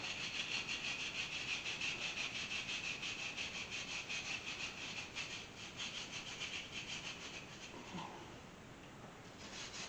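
Hand wire brush scrubbing dried, oil-caked dirt off a cast-iron engine in quick back-and-forth strokes, about five a second. The scrubbing stops briefly near the end, then starts again.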